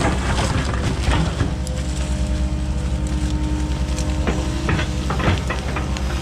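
Diesel engine of heavy construction equipment running steadily with an even low pulse, with a few sharp knocks about four to five seconds in.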